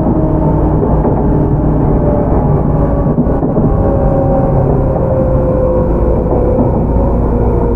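Tobu 10030 series electric train heard from inside motor car MoHa 14437 while running on the line: a loud, steady rumble of wheels on rails, with faint steady motor and gear tones.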